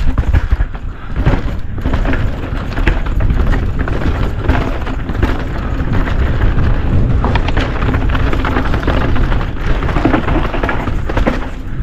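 Downhill mountain bike ridden fast down a dirt trail: tyres rolling over dirt and stones and the bike rattling and knocking over bumps, under a steady heavy rumble of wind buffeting the microphone.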